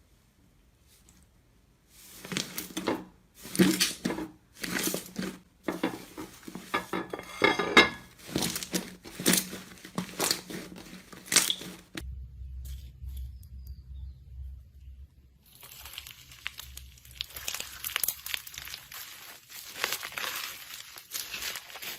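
Slime being squished and worked, making crackling, crinkling sounds in about ten separate squeezes. About halfway through it changes to a denser, steadier crackle over a low hum.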